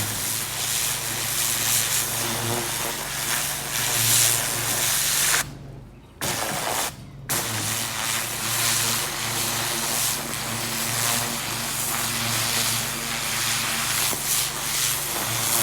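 Pressure washer blasting a water jet into garden soil: a loud, steady hiss of spray over a steady machine hum, starting suddenly and cutting out twice briefly about five and a half and seven seconds in as the trigger is released.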